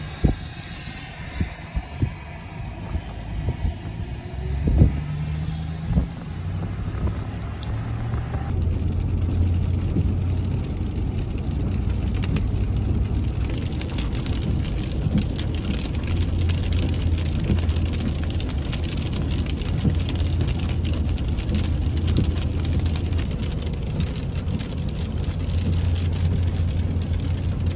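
Vehicle cabin noise while driving on a wet road: a steady low engine hum under tyre and road noise. In the first several seconds there are a few sharp knocks and a brief rise in engine pitch. From about eight seconds in the running noise becomes steadier and a little louder.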